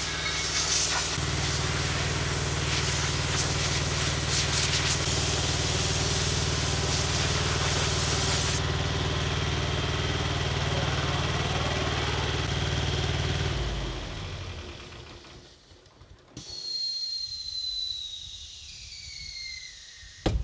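Engine-driven air compressor running steadily under the loud hiss of a glass-media blast gun. The blasting hiss stops about a third of the way in, and the compressor engine shuts off and runs down a few seconds later. A few high falling whistles sound near the end.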